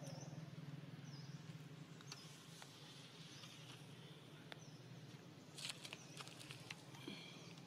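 Faint outdoor quiet: a steady low hum, short faint high chirps every second or so, and a brief rustle of clicks about six seconds in.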